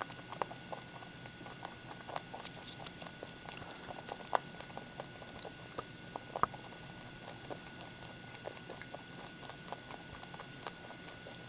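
Three house rabbits eating from a ceramic bowl: a steady run of small, irregular crunches and clicks as they chew dry pellets and knock the bowl, with two sharper clicks, one a little past four seconds in and one at about six and a half.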